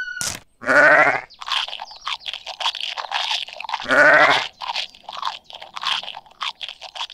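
A sheep bleats twice, a short wavering call about a second in and again about four seconds in, over a run of quick, irregular crunchy chewing sounds.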